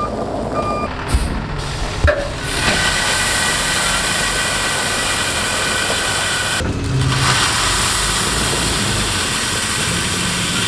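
Kenworth T880 tri-axle dump truck running while crushed limestone pours from its raised bed through the tailgate onto the driveway, a steady hissing rush that breaks off briefly about seven seconds in. A single reversing beep sounds near the start.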